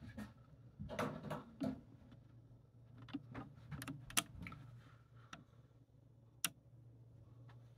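Quiet room with a low steady hum and scattered small clicks and taps: a cluster about a second in, more around three to four seconds, and single sharp clicks about four and six and a half seconds in.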